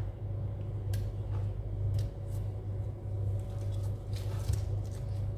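A kitchen knife tapping and scraping lightly a few times on a plastic cutting board while grapefruit is cut into pieces, over a steady low hum.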